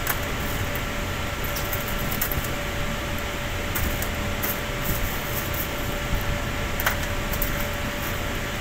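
Steady machinery hum with a faint steady tone, and a few light clicks and taps scattered through it as cremated bone fragments are picked through by gloved hand on a stainless steel tray.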